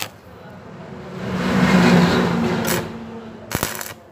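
Stick-welding arc crackling and sizzling as a short weld is run on the angle-iron joint, swelling for about two seconds and then dying away, with a low hum under it and a couple of sharp clicks near the end.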